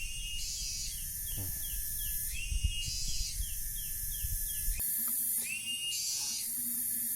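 Forest wildlife chorus: a cycle of high buzzing, a whistled note that steps up in pitch and quick falling chirps, repeating about every two and a half seconds. A low rumble underneath stops about two-thirds of the way through.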